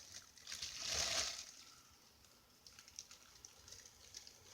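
A person drawing in a hit of helium: one breathy hiss lasting about a second, starting about half a second in, followed by faint small ticks.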